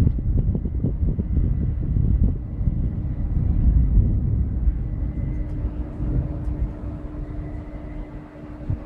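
Thunderstorm at night: a low, uneven rumble that swells and fades, dying down toward the end, with a faint steady hum joining about halfway through.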